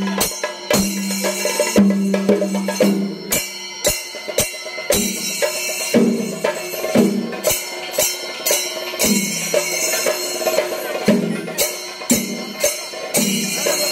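Chenda drums, the cylindrical rope-laced Kerala temple drums, beaten with sticks in a steady rhythm of sharp strokes several times a second. Many strokes carry a ringing low boom that sags slightly in pitch, with a bright metallic jangle above.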